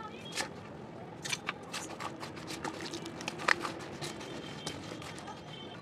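Crushed clay lumps in a stainless steel bowl being soaked with water and worked by hand: scattered sharp crackles and clicks, one louder click about three and a half seconds in.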